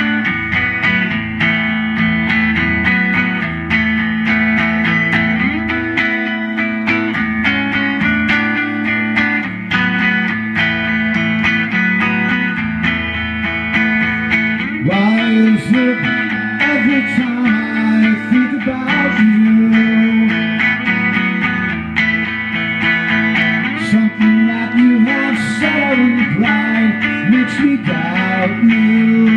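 Solo guitar playing a song, without a backing band.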